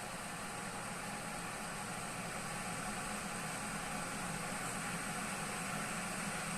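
Kitfort KT-654-1 electric kettle heating water: a steady hiss that slowly grows louder.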